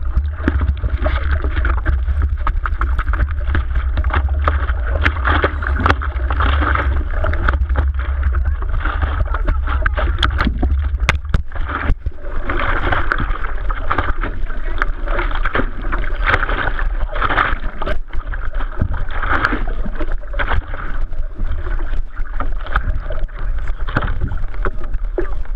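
Water rushing and splashing around a moving surfboard, with wind rumbling on the microphone. The wind rumble drops away about twelve seconds in.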